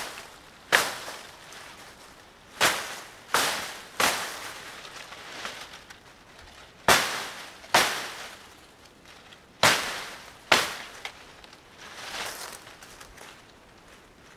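Dry sticks cracking and snapping in a brush pile, about ten sharp cracks at irregular intervals, each followed by a short rustle of dry leaves.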